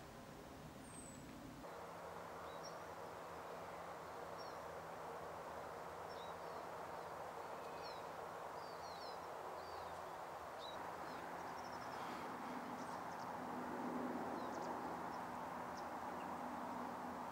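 Small birds giving many short, high chirps on and off over a steady rushing noise.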